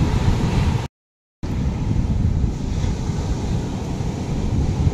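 Wind buffeting the microphone over the wash of surf breaking on a sandy beach. The sound drops out completely for about half a second, about a second in.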